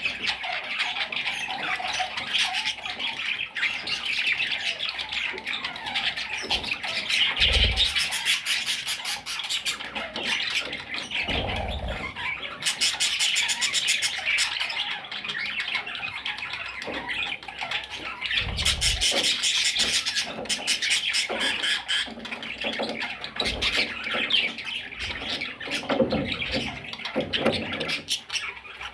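A flock of budgerigars chattering and squawking without pause, with several spells of harsher, rapid chatter and a few low thumps.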